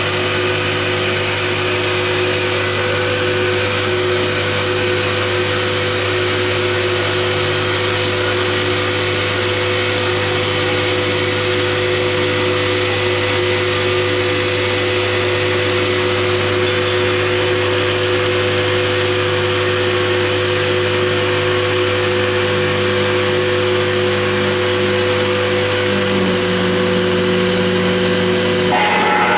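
CNC stone polishing machine running steadily: a constant motor hum with steady tones under an even hiss from the polishing head.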